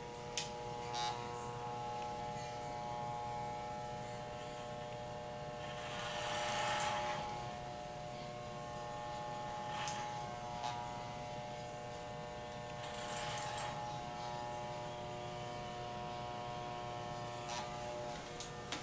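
Corded electric hair clippers running with a steady even hum while cutting a flat top, growing louder and raspier twice, about six and thirteen seconds in, as the blades pass through the hair. A few light clicks are heard along the way.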